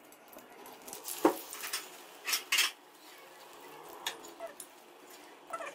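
Metal utensils scraping and tapping against an iron tawa in a few sharp strokes, about a second in, twice around two and a half seconds and once near four seconds, as a fried egg patty is lifted off the pan. A faint sizzle of oil runs underneath.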